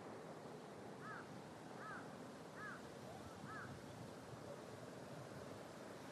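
A bird calls four times, short arched calls about a second apart, over steady outdoor background noise.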